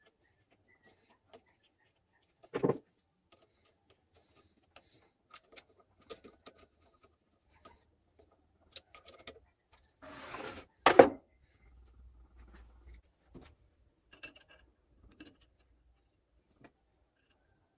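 Sparse small clicks and taps of generator parts being handled, with a loud knock about three seconds in and a second, louder knock near eleven seconds, just after a hiss lasting about a second.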